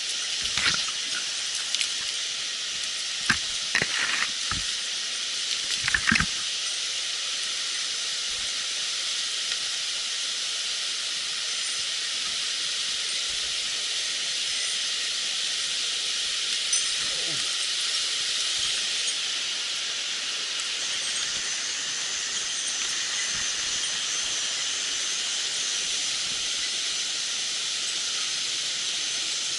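Mountain stream water rushing steadily over rocks. A few short knocks and clatters come in the first six seconds.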